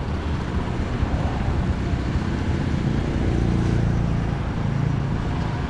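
Road traffic: a motor vehicle passing, its engine and tyre noise swelling toward the middle and easing off near the end.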